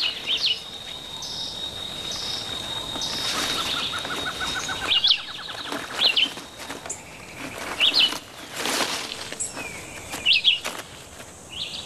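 Wild birds chirping over a steady outdoor background: short, sharp high chirps repeated every one to three seconds, a thin steady high tone during the first few seconds, and a quick rising trill about four seconds in.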